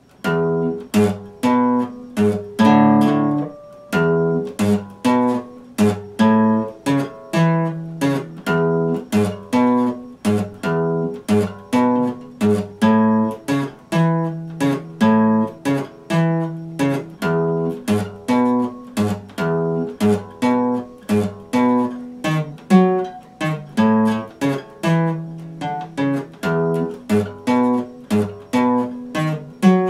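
Epiphone acoustic guitar strummed in a steady rhythm, about two strokes a second, moving through changing chords.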